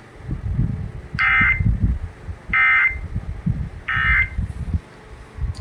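EAS end-of-message data bursts from a NOAA Weather Radio broadcast: three short buzzy digital bursts, each about a third of a second long and about a second and a half apart. They signal that the flash flood warning message has ended.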